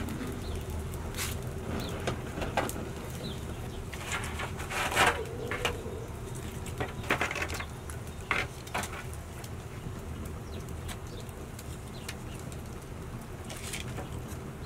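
Wood fire of branches and logs burning in an open hearth, crackling with scattered sharp pops, most of them bunched between about four and nine seconds in.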